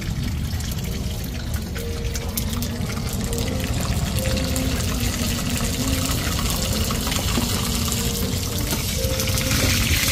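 Hot oil bubbling and sizzling in small cast-iron pans as batter for hoi tod, a Thai crispy shellfish pancake, is poured in and fried. The sizzle grows louder near the end.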